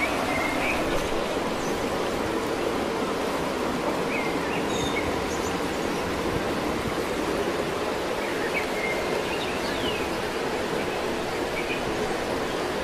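Steady rush of a stream running over rocks, with faint high chirps now and then.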